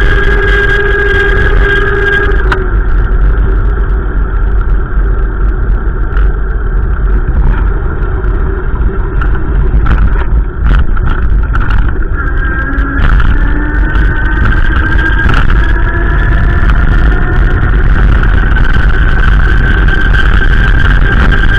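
A motor vehicle running as it drives, with a steady engine hum over a heavy low rumble; the hum rises in pitch from about twelve seconds in, as if speeding up.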